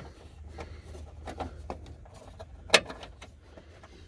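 Light clicks and rubbing of a wire being pressed into plastic retaining clips, with one sharp click about two-thirds of the way in.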